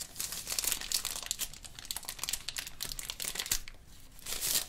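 Thin paper wrapper around a phone charger crinkling and rustling as it is handled and worked open, in dense irregular crackles. It goes quieter for a moment a little before the end, then crackles loudly again.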